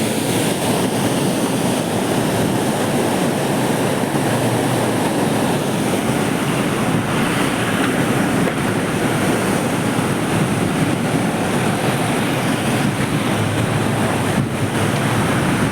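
Steady rush of water pouring through the open gates of a river barrage, released in strong flow.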